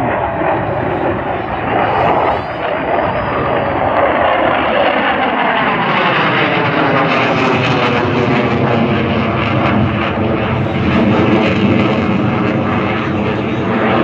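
Jet noise of a JF-17 Thunder fighter's single RD-93 turbofan during a display flypast: a loud, continuous rush with a sweeping tone that falls in pitch through the middle as the jet passes.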